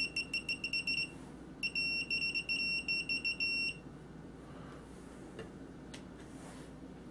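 Pro'sKit MT-2017 analog multimeter's continuity buzzer giving a high-pitched beep each time the probe tips are tapped together. A run of quick on-off beeps, a brief break just after a second in, then a longer run that stops just before four seconds in. After that only a few faint clicks.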